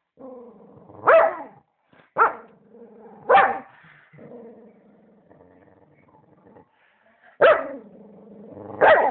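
Dog growling steadily with five loud barks, three in the first few seconds and two near the end. This is defensive growling and barking while the dog guards its bread.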